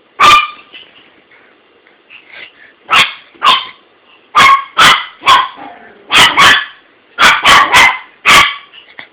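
A dog barking at its toy: about a dozen loud, sharp barks, singly and in quick runs of two or three, with faint whines between.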